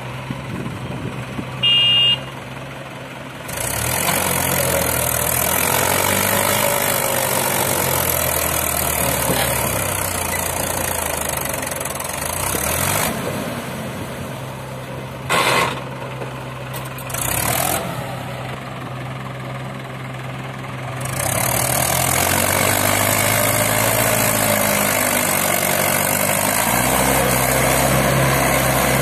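Mahindra 575 DI tractor's diesel engine pulling hard against a fully loaded soil trolley in sand. It is pushed up to a louder, straining run twice for long stretches, dropping back to a lower run in between, with a few brief louder bursts.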